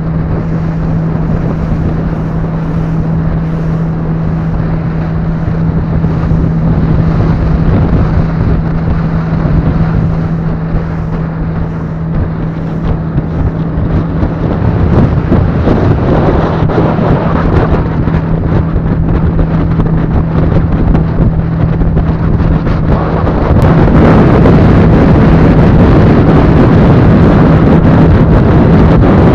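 A boat engine runs steadily with a constant hum, under the rush of wind and water. About 24 seconds in, the rushing noise becomes louder and brighter.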